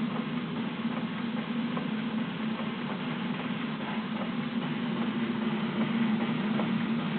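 Live-steam model Murdoch Aitken steeple steam engine running steadily, its mechanism ticking lightly over a steady low hum.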